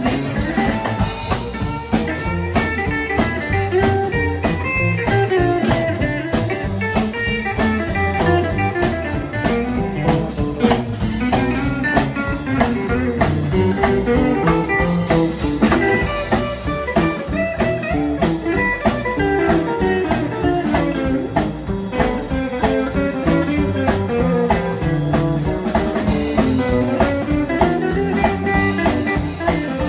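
Live blues band playing an instrumental break: electric guitars, drum kit and upright bass keeping a steady boogie beat, with no vocals.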